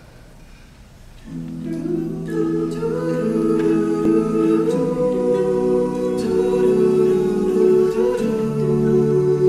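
All-male a cappella group singing sustained close-harmony chords on held vowels, with no instruments. The voices come in about a second in and hold each chord, moving to a new one every second or two.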